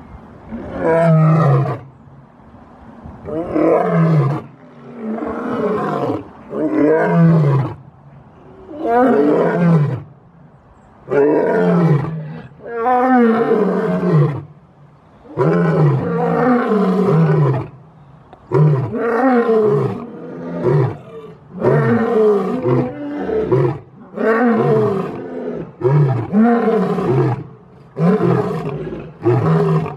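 Lion roaring over and over: a long series of calls, each about a second long and falling in pitch, coming about every two seconds with short gaps between them.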